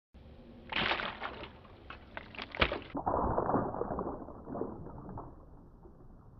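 Water splashing and sloshing in a small glass tank as a doll is dropped in, with a couple of sharp knocks in the first three seconds. From about three seconds in it turns into a muffled wash that fades away.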